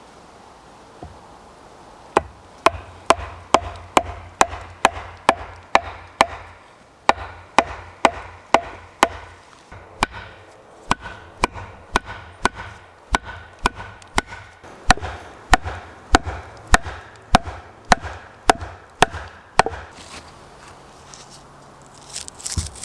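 A hand tool striking wood in quick, sharp blows, about two a second, in several runs with short pauses between them, some blows leaving a faint ring.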